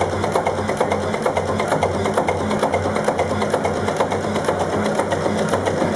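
Vintage multi-cylinder marine diesel engine running steadily: a rapid, even clatter over a low, pulsing beat.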